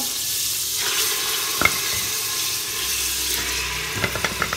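Hot ghee sizzling steadily in a cooking pot as pieces of raw beef go in to fry. There is one sharp click about a second and a half in and a few quick clicks near the end.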